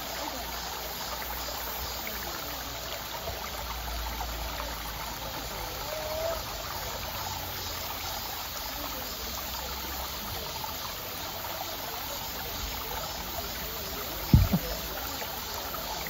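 Shallow mountain stream running steadily over rocks. One short, dull low thump comes near the end.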